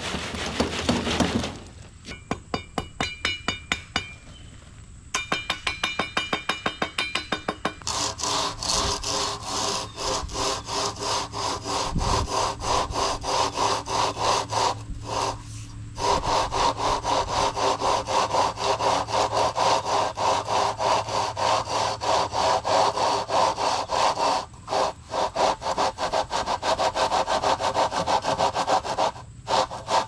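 Wet concrete being screeded: a long straight board worked back and forth along the top of the forms, scraping through the concrete in fast, even sawing strokes with a couple of short pauses. At the start a wheelbarrow load of concrete is tipped out onto the slab.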